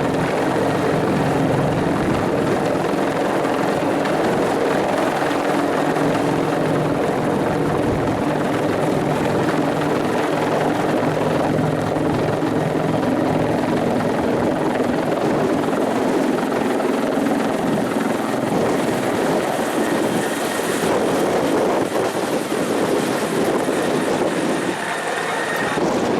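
Bell 412 twin-turbine helicopter running steadily, its rotor and engines making a continuous loud drone.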